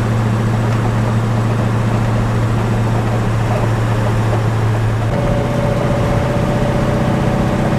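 Chevelle's 454 big-block V8 with FiTech throttle-body fuel injection at a steady cruise, a constant low drone with no revving. About five seconds in the sound shifts and a steady higher whine rides over the drone.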